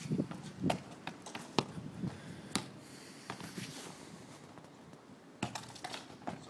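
A football being dribbled and kicked on brick paving: scattered sharp taps and knocks, with footsteps.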